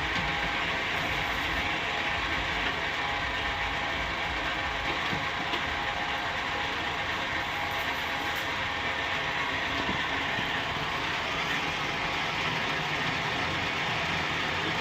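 Metal-turning lathe running steadily, a continuous even mechanical whir.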